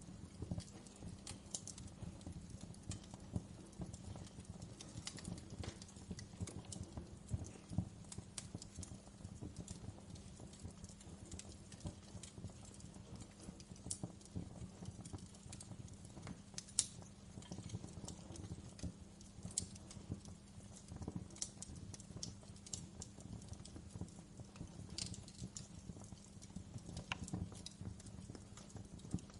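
Wood fire in a fireplace crackling, with many small irregular pops over a low steady rumble of the flames and a few sharper snaps, one near the middle and two more near the end.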